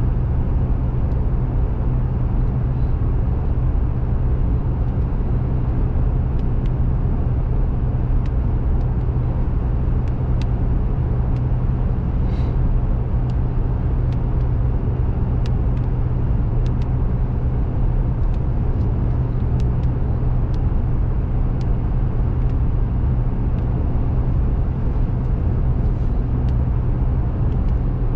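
Car driving at road speed, heard from inside the cabin: a steady low engine and tyre hum, with scattered light ticks.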